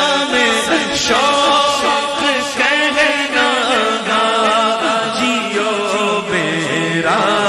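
Urdu naat sung by male voices without instruments, with layered chorus-like backing vocals; long held phrases whose pitch slides up and down.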